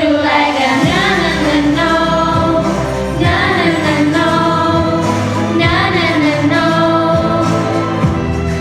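A choir singing a Thai pop song in harmony, over a steady low bass line. The sung phrases glide up and down in pitch and are held between breaks every two to three seconds.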